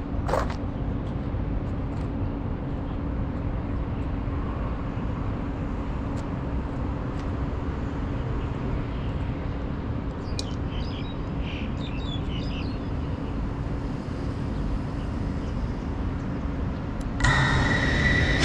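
Steady outdoor background rumble with a faint steady hum, a few short bird chirps about ten seconds in, and music coming in about a second before the end.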